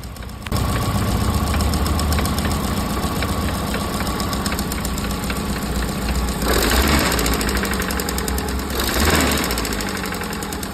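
Car engine idling with a regular knock, revved twice, about two-thirds of the way in and again near the end, the knocking growing louder with the throttle. This is connecting-rod knock from a worn-through connecting-rod bearing on cylinder 1.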